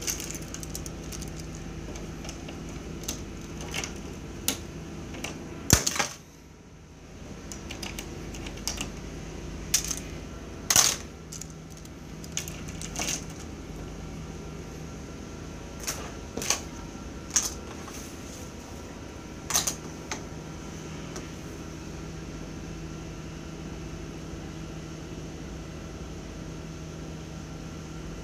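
Irregular sharp taps and clicks of drawing tools and small objects being set down and handled on a tabletop, over a steady low hum. The loudest knocks come near six and eleven seconds in, the hum drops out for about a second just after the first of them, and the tapping stops for the last several seconds.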